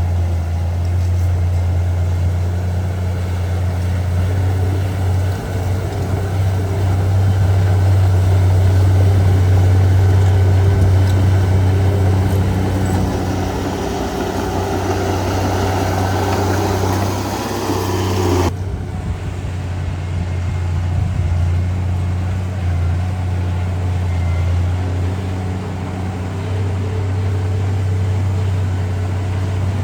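Heavy earthmoving machine's diesel engine running steadily at a low hum, with a broad rushing, rattling noise over it through the first two-thirds that cuts off suddenly about eighteen seconds in.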